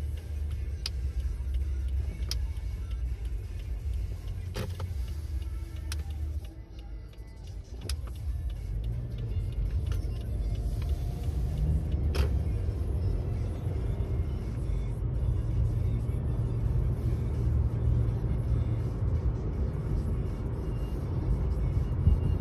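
Low engine and road rumble heard inside a moving car's cabin, with a few sharp clicks in the first half. The rumble dips briefly, then grows louder as the car gets under way along the road.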